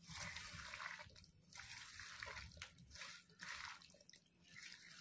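Faint wet squelching of a hand squeezing and mixing raw fish pieces with mashed wood apple pulp, onion and mustard pastes, spices and oil in a metal wok, in irregular bursts about once a second.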